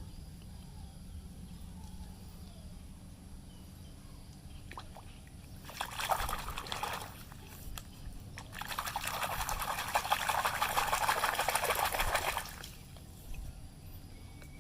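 Water pouring over a muddy toy car as it is washed, in two bursts: a short one about six seconds in, then a longer, steadier one of about four seconds.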